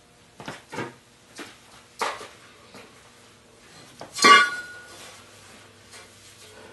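Metal clinks and knocks at a workbench, several small ones and then one louder clank about four seconds in that rings briefly, as steel is handled before a bend test.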